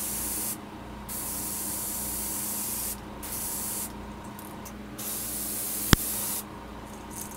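Airbrush spraying paint in about four short on-off bursts of hiss. A single sharp click comes near the end of the last burst.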